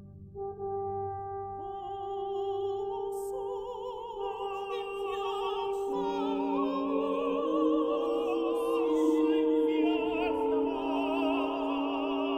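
Classical vocal quartet singing with vibrato in overlapping entries, one after another, over steady held instrumental notes, part of a contemporary polychoral concerto for voices, brass, strings and organ. A lower sustained note joins about halfway through.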